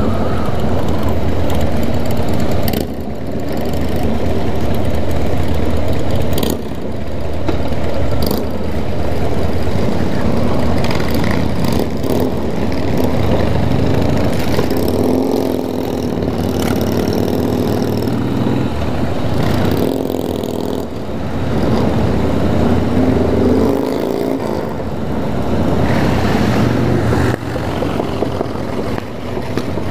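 Motorcycle engine running while riding along, continuous and loud, the note easing off briefly several times as the throttle is closed and reopened.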